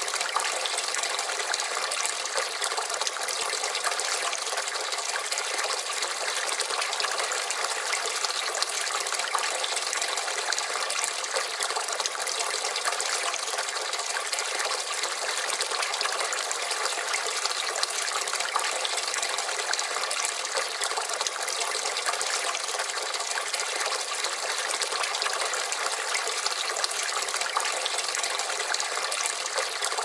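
Water from a two-tier wooden barrel fountain falls in a steady stream from the spout and splashes into the pool in the lower barrel: an even, continuous splashing that does not change.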